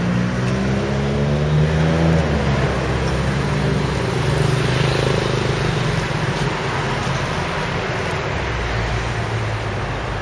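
A motor vehicle's engine revving up, rising in pitch over the first two seconds, then running steadily over a wash of street noise.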